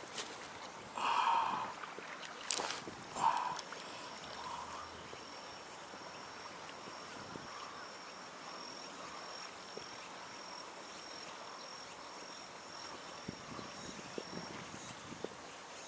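Water and wind noise around a small inflatable packraft on open water, with a few knocks and short splashy sounds in the first few seconds. A faint thin high tone runs through the middle.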